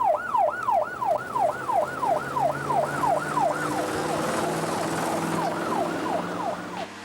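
Police car siren in a fast yelp, its pitch sweeping up and down about three times a second. It is loud at first, then fades away over the last few seconds.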